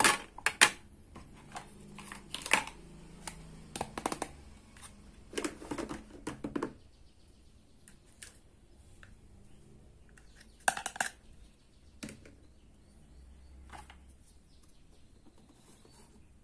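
Hard plastic toy kitchen pieces being handled and set down: a run of sharp clacks and taps through the first half, then a short cluster and a couple of single taps later.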